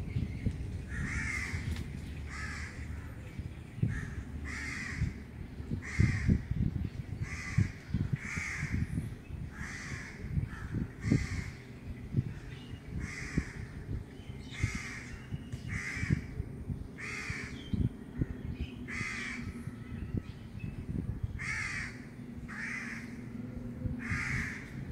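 A crow cawing over and over, about one call a second, over an uneven low rumbling.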